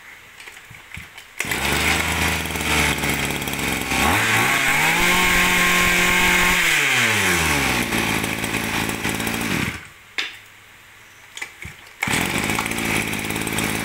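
Komatsu G2K 23 cc two-stroke brush cutter engine starting and idling. About three seconds in it revs up, holds high for a couple of seconds, then drops back to idle. It cuts off, then is pull-started again near the end and runs briefly.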